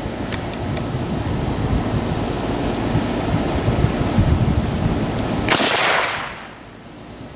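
A low, uneven rumble, then about five and a half seconds in a single rifle shot cracks out and its echo dies away over about half a second.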